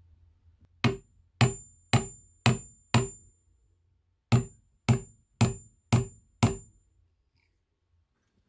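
Hammer striking the ends of a vice's steel guide rods and screw, ten blows in two runs of five about half a second apart, each with a short high metallic ring, tapping the rods home into the vice jaw.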